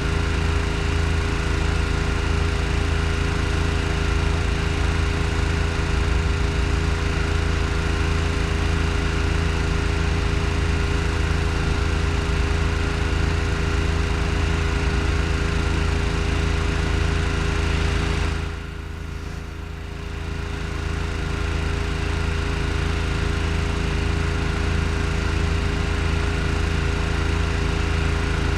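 Small gas engine of a pressure washer running steadily. About two-thirds of the way through it briefly drops in level, then picks back up.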